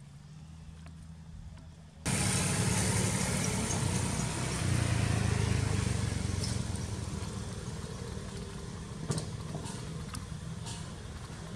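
Engine running steadily with a low rumble and hiss, coming in abruptly about two seconds in after a fainter low hum; a few faint clicks near the end.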